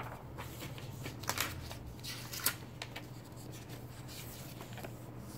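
Paper and vellum sticker sheets being handled and shuffled: a few short rustles and light paper slaps, the sharpest about a second and a half and two and a half seconds in.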